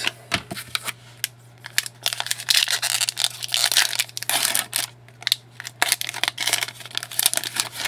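Plastic card packaging crinkling and rustling in quick bursts with small clicks as trading cards are handled, over a low steady hum.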